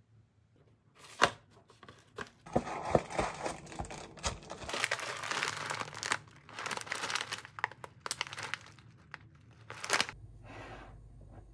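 A clear plastic bag of granola being handled and crinkled, with a sharp snap about a second in and another near the end.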